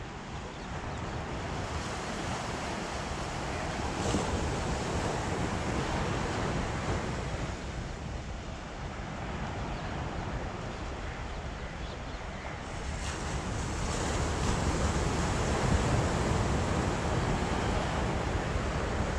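Sea surf washing onto a sandy, rocky beach, with wind rushing over the microphone; the noise swells louder about four seconds in and again in the last few seconds.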